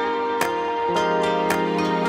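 Instrumental music: held tones that shift to a new chord about a second in, over a soft percussive hit about once a second.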